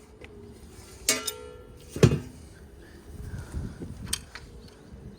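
A few knocks and clinks of tools and sheet-metal parts being handled while an outdoor air-conditioning unit is taken apart, the loudest a low thud about two seconds in.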